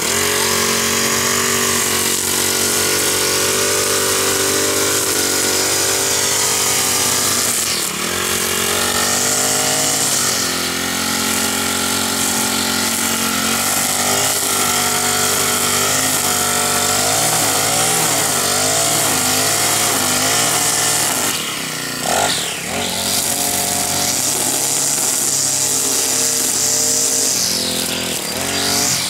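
Husqvarna 324L string trimmer's small four-stroke Honda engine running under load while its nylon line cuts grass. The engine pitch rises and falls with the throttle, dipping briefly about 22 seconds in and again near the end. It pulls without bogging down.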